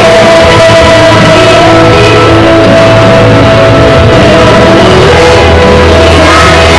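A class of young schoolchildren singing a song together, loud, with instrumental accompaniment.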